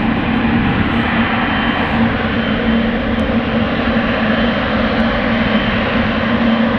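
Boeing 747 jet engines running at high power, a loud, even rushing noise with a steady low hum.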